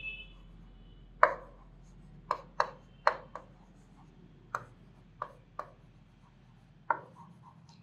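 Chalk tapping and scraping on a blackboard as words are written: about nine short, sharp taps at uneven intervals.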